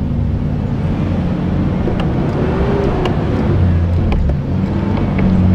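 Off-road SUV's engine running steadily under load as it climbs a muddy rock ledge, with a few sharp knocks about two, three and five seconds in.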